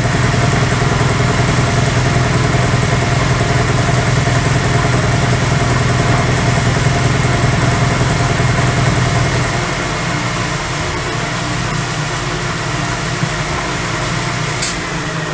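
Lagun vertical milling machine running, its end mill taking a pass on 3/4-inch key stock clamped in the vise: a steady machine hum. About ten seconds in the low part of the hum drops away and the machine runs on more lightly, with one sharp click near the end.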